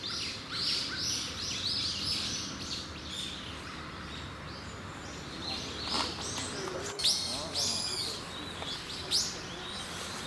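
Small birds chirping: many short, high calls in quick runs, thick in the first few seconds and again in the second half, with a couple of louder calls near the end.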